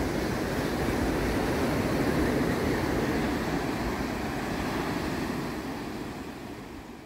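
Ocean surf breaking on a beach, a steady rushing wash mixed with wind on the microphone, fading out over the last few seconds.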